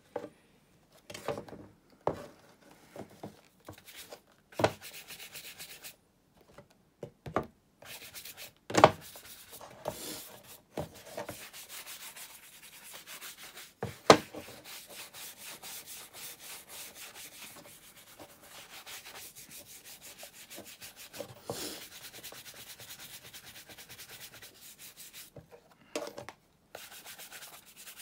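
Wooden-backed shoe brush swept rapidly back and forth over a leather cap-toe shoe, brushing in freshly applied cream to bring up the shine. The first several seconds hold scattered handling scrapes and taps, then a long steady run of quick strokes, with a couple of sharp knocks.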